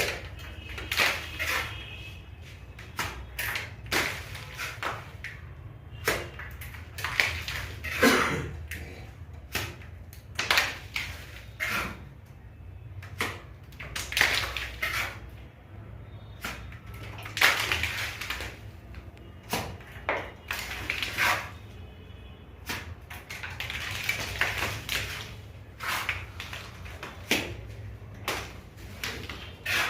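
Hand tools working fresh mortar on a ceiling: irregular scraping and slapping strokes, one every second or so, some with a short metallic clink, over a steady low hum.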